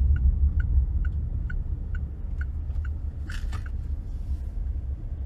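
Inside a moving car: a steady low road and engine rumble, with the turn-signal indicator ticking about twice a second as the car turns in. The ticking stops about three seconds in, followed by a brief noisy rush.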